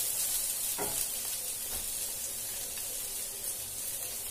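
Chopped onion, green chilli and beans sizzling in oil in a nonstick frying pan, with a steady hiss. They are stirred with a wooden spatula, which scrapes the pan once, about a second in.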